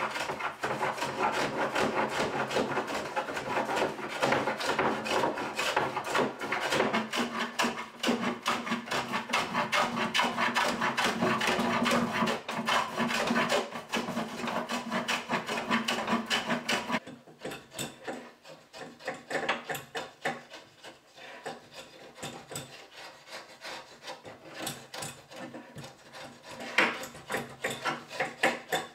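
Wooden rabbet plane shaving yellow pine in quick, repeated strokes while cutting a tenon cheek. About 17 seconds in, the strokes turn quieter and more separate, like the short scrapes of a metal router plane levelling the cheek.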